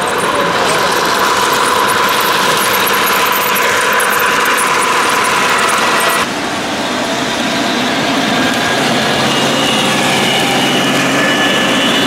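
O-gauge model trains running steadily on three-rail track, their motors and wheels heard close up. The sound changes abruptly about six seconds in.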